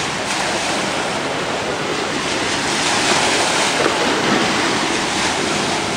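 Small sea waves washing onto a sandy beach: a steady rush of surf.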